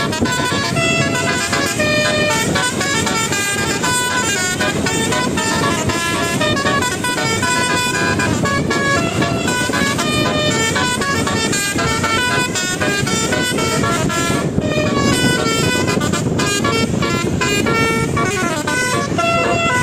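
Vehicle horns tooting in many short notes at different pitches, over steady loud traffic noise.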